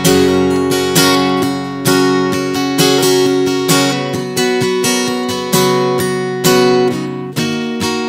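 Solo acoustic guitar strummed in a steady rhythm with no singing, a strong accented strum about once a second and lighter strokes between.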